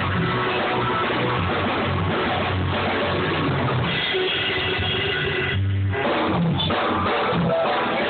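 Rock band music with electric guitars and a drum kit playing and no singing, dull-sounding with the top end missing; about two-thirds of the way in the band drops briefly to a single low held note before coming back in.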